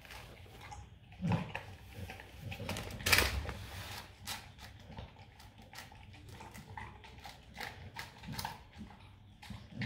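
Rottweiler eating from a stainless steel bowl: irregular wet clicks of licking and chewing, with a few louder knocks of the muzzle against the steel bowl, the loudest about three seconds in.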